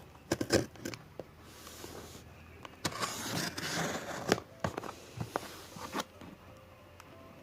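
Parcel and packaging being handled: a series of sharp taps and knocks with a stretch of rustling and scraping in the middle.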